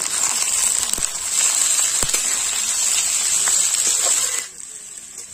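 Sliced onions sizzling in hot mustard oil in a steel kadhai, a steady high hiss, with a metal spatula clicking against the pan a couple of times. The sizzle cuts off suddenly about four and a half seconds in.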